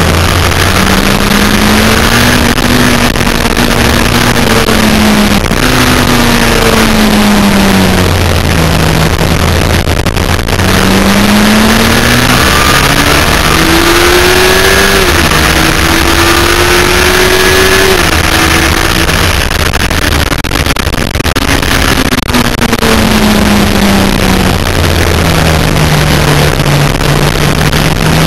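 Yamaha FZR1000's inline-four engine at racing speed. Its pitch climbs under acceleration and falls as the bike slows, several times over, with a gear change about fifteen seconds in. Heavy wind rush on the bike-mounted microphone runs underneath.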